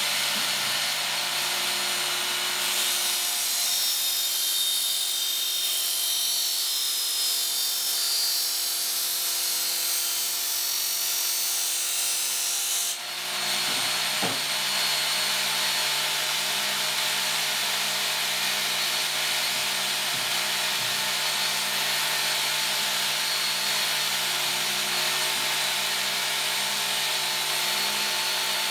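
Work Sharp Ken Onion electric belt knife sharpener, fitted with a fresh coarse red abrasive belt, running steadily without a blade on it. There is a brief dip in level near the middle, after which it runs on with a slightly different tone.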